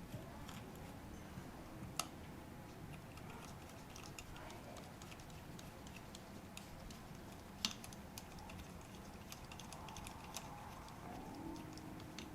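Small scattered clicks and taps of metal lens parts and tools being handled during lens disassembly, with two sharper clicks, one about two seconds in and one about seven and a half seconds in. Background music comes in near the end.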